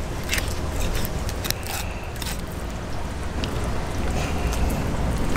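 Fillet knife slicing a mahi-mahi fillet off the backbone, with a few faint wet clicks, under a steady rushing noise with a low rumble.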